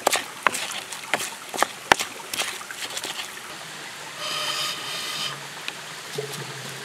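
Stone pestle knocking and crushing shallots, garlic and chilli in a clay mortar (ulekan and cobek), in sharp irregular strikes about twice a second for the first three seconds. About four seconds in there is a brief whistling tone.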